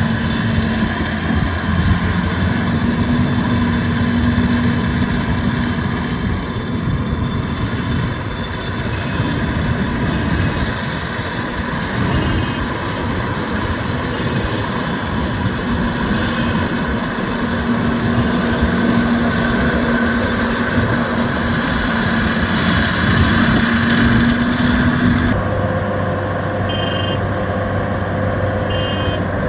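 Kukje KC100 six-row rice combine harvester running steadily. About 25 seconds in, the sound changes to a lower, steadier hum with short high beeps every couple of seconds.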